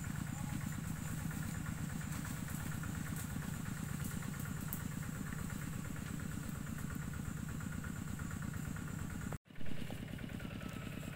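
Single-cylinder diesel engine of a two-wheel walking tractor running steadily with a fast low pulse. The sound cuts out for a moment about nine seconds in, then carries on.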